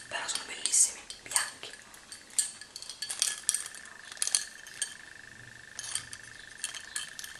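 Shell earrings with gold-coloured metal caps clicking and clinking as they are handled close to the microphone: a scatter of sharp, irregular taps.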